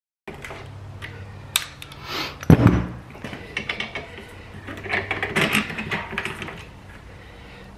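Metal clicks, scrapes and clattering of hand tools working at the aluminium frame of a solar panel as hinges are fastened, with a sharp knock about two and a half seconds in and a quicker run of clicks a little past halfway.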